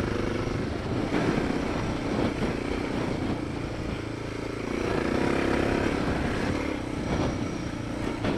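Suzuki DR650 dirt bike's single-cylinder four-stroke engine running steadily while riding along a gravel track, getting louder about five seconds in as it is given more throttle. A few short knocks are heard along the way.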